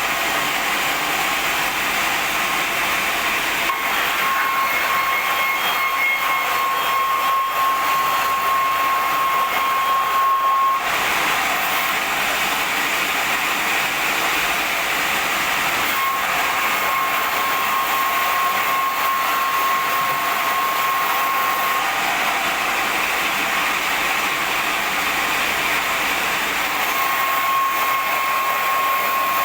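Sawmill band saw running steadily while sawing wide boards. A high, steady whine rises over the noise three times, each for several seconds.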